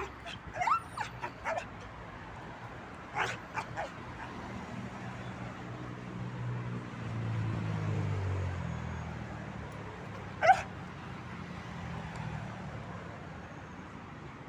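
Dog giving short yelping barks in quick bursts, then one loud bark about ten seconds in, warning off a stranger who approaches what she is guarding. A low rumble swells and fades in the middle.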